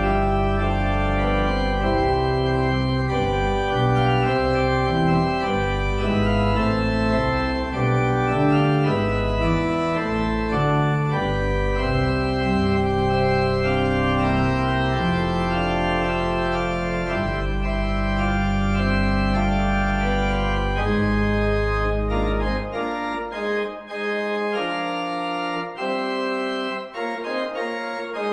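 Organ played on manuals and pedalboard: sustained chords over deep pedal bass notes. About 23 seconds in the pedal bass drops out and the manuals carry on alone with shorter, more detached notes.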